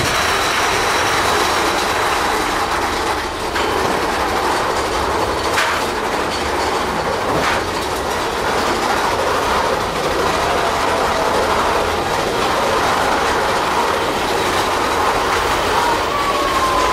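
A mine-train roller coaster's cars rattling and rumbling along the track at speed, heard from aboard, with a few sharp clacks. A short falling squeal comes near the end.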